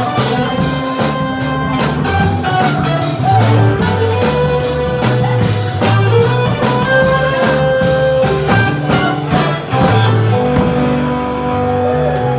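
Live rock band playing: electric guitar, bass and drum kit. The drums and cymbals stop near the end, leaving a held chord over sustained bass.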